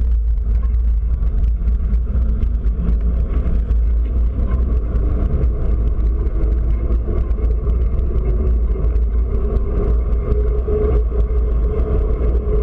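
Wind buffeting the microphone of an action camera mounted on a moving bike, a loud steady low rumble, with a dense run of small rattling clicks from the mount over the road. Car traffic hums around it, and a faint steady tone comes in during the second half.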